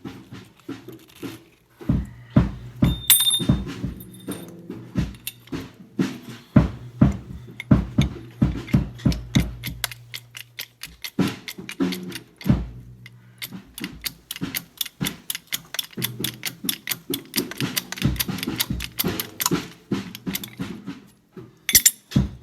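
Background music with a steady beat over a low bass line.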